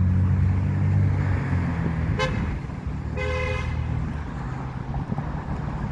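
A car horn toots twice, a brief tap and then a longer honk of about half a second, near the middle. Before that, a passing motor vehicle's steady engine hum fades away.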